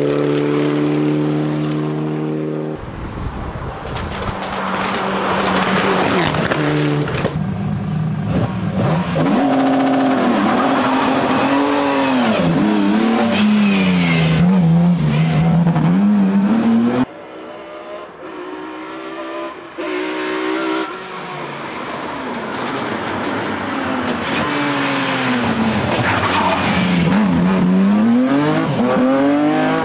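Competition cars at full throttle, engines revving up and down through gear changes and corners. The sound changes abruptly twice, once near the start and once about 17 seconds in, as clips of different runs follow one another.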